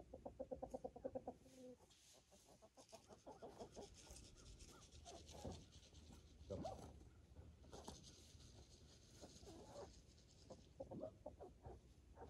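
Chickens clucking faintly: a quick run of clucks in the first two seconds, then scattered single clucks and calls.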